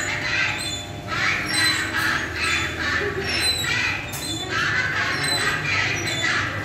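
Busy din of an indoor kiddie-ride arcade: shrill children's voices and squeals mixed with the rides' electronic sounds, pulsing on and off.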